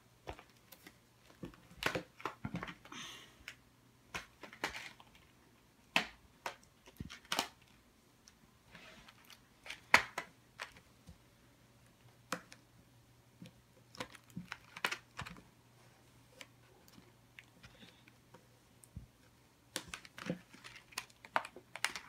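Stiff foil-covered cardboard party hat being folded and creased hard by hand on a table: scattered sharp clicks, taps and short crinkles, the loudest click about halfway through.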